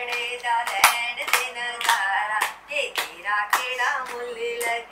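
Women singing a traditional Indian song with hand claps keeping time, about two claps a second.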